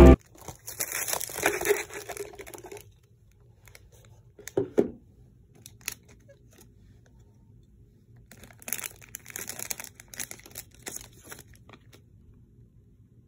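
Clear plastic wrapping crinkling and tearing as it is pulled off a small boxed item by hand, in two spells, with a short bump in between.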